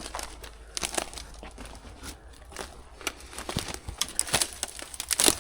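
Dry twigs and brush snapping and crackling, with footsteps crunching over dry leaves and debris, as someone pushes through thick undergrowth. The snaps come irregularly, with the loudest cluster near the end.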